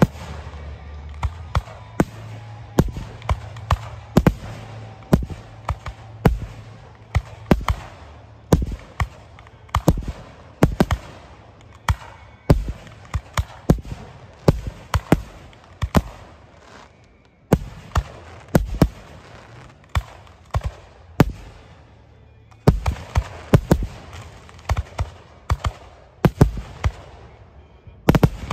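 Aerial firework shells bursting in an irregular series of sharp bangs, roughly one or two a second, with a short lull about two-thirds of the way through and a quicker run of bangs near the end.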